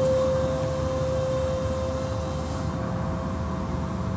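Automatic tunnel car wash machinery running: motors hum with a steady whine and a low rumble while spinning cloth wash strips sweep over a car.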